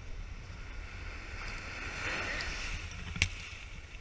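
Surf washing up the sand, its foam hissing and swelling about two seconds in, over a steady rumble of wind on the microphone. A single sharp click comes about three seconds in.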